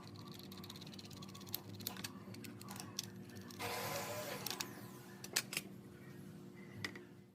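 A series of sharp clicks and taps over a steady low hum, with a brief hissing burst about three and a half seconds in.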